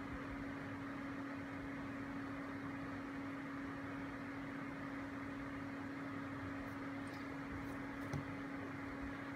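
Steady low hum over a faint hiss, with no change in pitch, and a light tap near the end as a hand touches the dynamotor.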